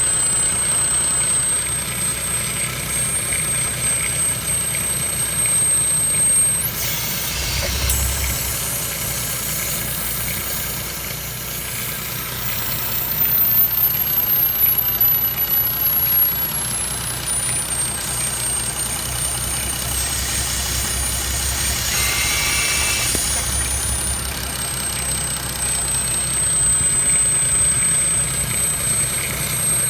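Audi TT 3.2 VR6 engine idling with a thin, very high-pitched whistle from under the hood. The whistle jumps up in pitch about six seconds in, slides slowly back down over the next ten seconds, and rises a little again past twenty seconds as the engine note swells.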